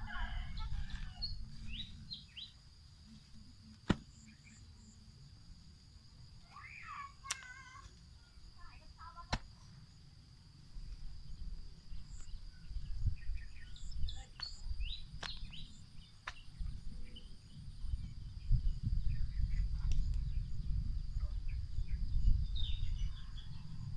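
Long-handled hoe chopping and scraping into packed soil, with dull strikes and a few sharp clicks, louder in the second half. A steady high insect drone and a few bird chirps sound over it.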